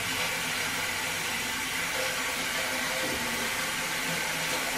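Water running steadily from a faucet into a sink while hands are washed.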